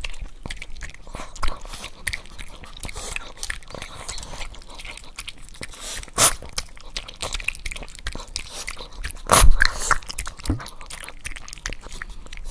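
Small dog chewing and crunching a treat: many irregular small crunches, with two louder sharp knocks about halfway through and again about three quarters of the way through.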